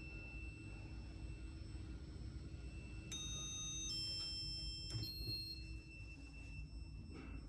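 Orona Arca II lift car with a steady low hum under a faint steady whine; about three seconds in an electronic chime sounds three short tones of different pitch, the lift's floor-arrival signal before the doors open.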